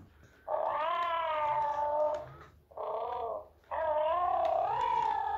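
Interactive plush bear toy's electronic voice giving three wavering, cub-like calls: a long one, a short one, then another long one.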